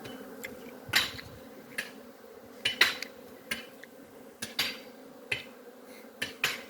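Bees buzzing faintly as a steady hum, broken by about a dozen irregular sharp clicks or taps.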